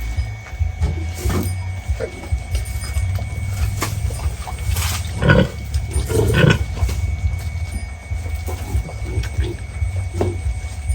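Pigs grunting in short, scattered calls, a couple of louder ones about five and six and a half seconds in, over a steady low rumble.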